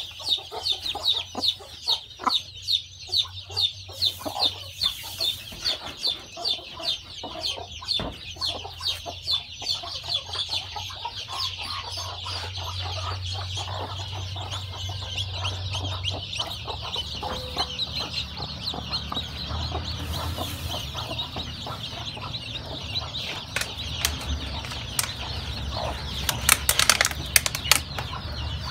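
Newly hatched chicks peeping: a string of high chirps about two to three a second, which thickens into steady overlapping peeping after about ten seconds. A few sharp rustling clicks come near the end.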